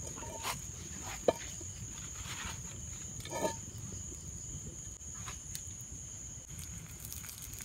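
Open wood fire burning under a frying pan, with a sharp pop about a second in, over a steady high trill of crickets.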